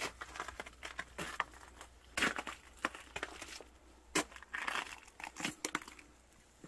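Footsteps crunching over crusted snow and frozen ground: an uneven series of crunches, some louder than others.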